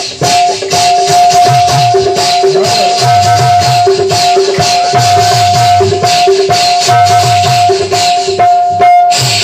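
Ghungroo ankle bells jingling in rapid rhythm over a music track, with a pulsing bass beat and two steady held tones beneath.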